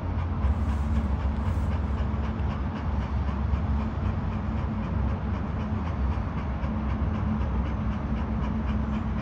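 Dog panting hard with its tongue out, a quick even rhythm of breaths over a steady low rumble.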